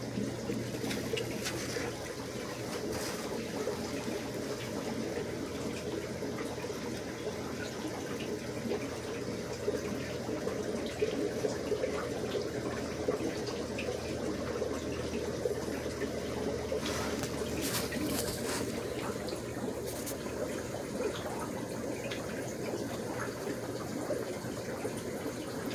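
Steady bubbling and trickling of water from the running aquarium filtration in a room of fish tanks, over a low steady hum.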